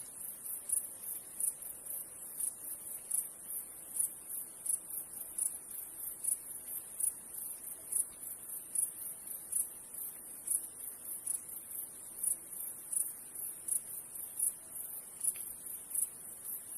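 Insects chirping steadily in a continuous high-pitched pulsing chorus, about three pulses a second.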